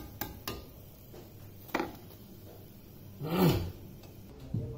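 A few light metal clicks, typical of a slotted steel spoon knocking against a kadai as fried kachoris are lifted from the oil. About three seconds in comes a brief, louder low sound that rises and falls in pitch.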